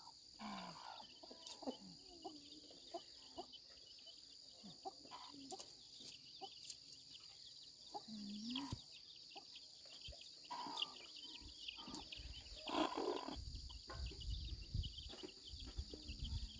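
Chickens clucking and calling faintly at intervals, with one louder call about two-thirds of the way through, over a steady high-pitched hum.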